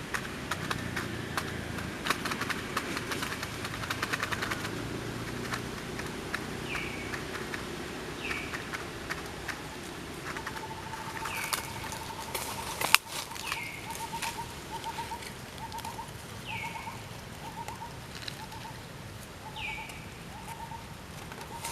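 Animal calls: a short high call, falling in pitch, repeats every two seconds or so, over a lower call repeated in quick pulses that comes in about halfway through. Crackling and rustling in the first few seconds, and one sharp click about 13 seconds in.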